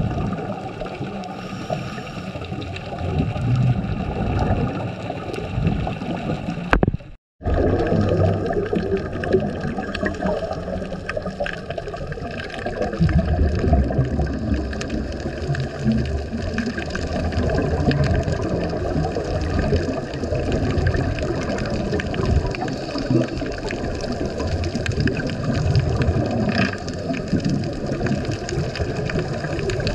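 Underwater sound of scuba divers' exhaled bubbles from their regulators gurgling and rushing past the camera. The sound cuts out for a moment about seven seconds in.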